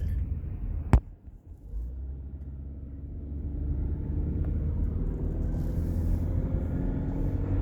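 Car engine and road rumble heard from inside the cabin, with one sharp knock about a second in; after a brief lull the engine note climbs steadily as the car speeds up.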